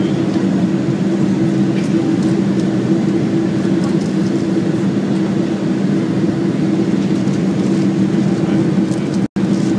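Steady cabin drone of a Boeing 747 airliner in flight, engine and airflow noise with a constant low two-note hum, cutting out for an instant near the end.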